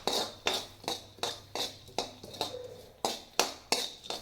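A spatula scraping and knocking against a kadhai while crushed almonds are stirred and sautéed in ghee. The strokes come as sharp clicks, about two or three a second, with a brief pause near the middle.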